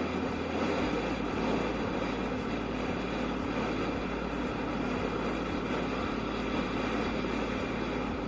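Yamaha Aerox scooter being ridden: its single-cylinder engine runs steadily under a constant rush of wind and road noise.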